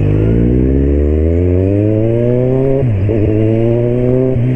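Kawasaki Z1000's inline-four engine accelerating hard from a stop, its pitch rising steadily through first gear. A quick dip and recovery about three seconds in is an upshift, after which the revs climb again.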